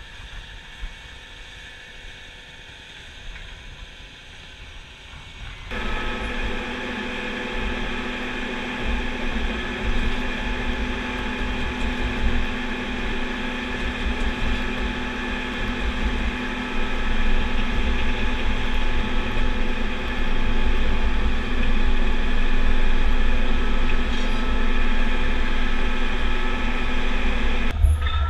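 Engine and hydraulics of a Mastenbroek 35/20 tracked V-plow drainage machine running steadily under load while pulling the plow, with a steady hum and mechanical rattling. About six seconds in the sound becomes much louder and stays loud.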